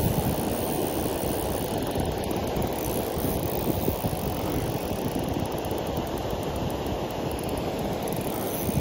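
Steady rushing outdoor noise of wind and flowing river water, heaviest in the low end and without a break.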